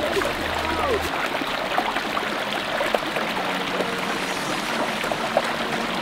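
Water running and splashing over rocks in a pondless waterfall stream: a steady, even rush of flowing water.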